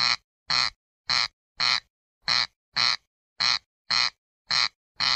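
Corncrake calling its rasping two-part crex-crex, about ten short rasps in paired strokes repeated at a steady pace.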